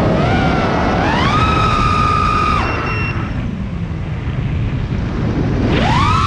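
Brushless motors of a 5-inch FPV freestyle quadcopter (T-Motor LF40 2450Kv) whining, rising in pitch to a held high whine that cuts off about two and a half seconds in as the throttle is chopped. Air rushes over the onboard camera's microphone while the quad drops nose-down, then the motor whine rises again near the end as throttle comes back.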